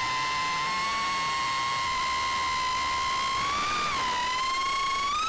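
FPV quadcopter's brushless motors and propellers whining at a steady pitch. The pitch dips briefly about four seconds in, then climbs as the throttle is pushed up near the end.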